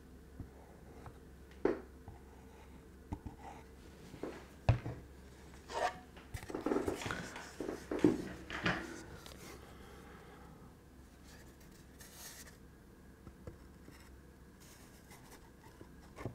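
Light knocks and rubbing of MDF kit parts being handled as the glue bottle is set down and the lid panel is fitted onto the cabinet, busiest around seven to nine seconds in.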